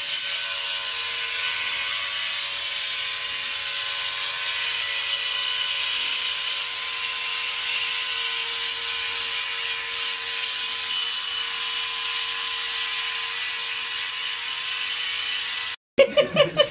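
Electric hair clipper buzzing steadily as it is run over a small monkey's head. It cuts off suddenly near the end.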